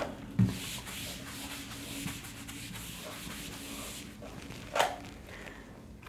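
Felt whiteboard eraser rubbing back and forth across a whiteboard, wiping off writing: a steady scrubbing for about four seconds, with a short knock about half a second in and another near the end.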